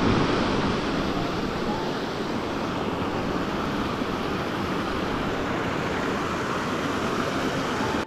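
Small waterfall on a mountain stream rushing steadily into a pool: constant splashing water noise.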